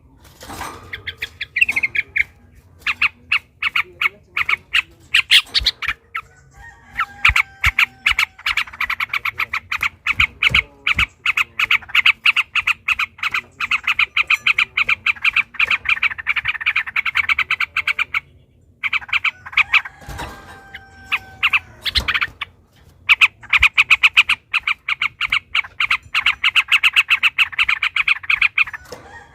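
Yellow-vented bulbuls (trucukan) singing long, rapid chattering rolls of quickly repeated notes, a run lasting several seconds at a time with brief pauses between. Short held whistled notes break in at the start of some runs.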